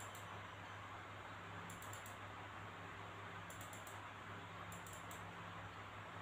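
Quiet room tone: a steady hiss with a low electrical hum, and faint clusters of high ticks every second or two.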